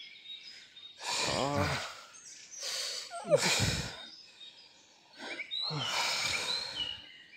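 A man breathing hard after a fight, with three drawn-out groaning exhales about two seconds apart.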